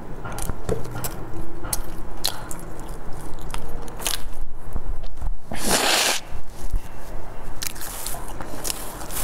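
Close-miked chewing of a sesame-crusted bun with a soft filling: wet mouth clicks and light crunching, with one louder noisy burst about six seconds in.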